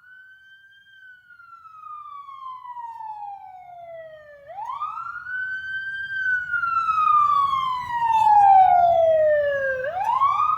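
Police car siren wailing, each cycle a quick rise and a slow fall about every five seconds, run through Adobe Audition's Doppler Shifter effect. It grows steadily louder as if the car approaches from far away, and a low rumble comes in underneath.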